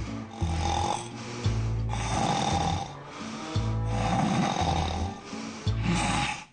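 Loud snoring in repeated rough, rumbling breaths, with music playing underneath.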